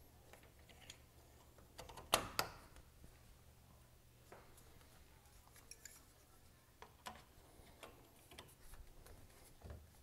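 Light handling noises on the water heater's sheet-metal cover as a label strip is handled: two sharp taps about two seconds in, then scattered small ticks and rustles.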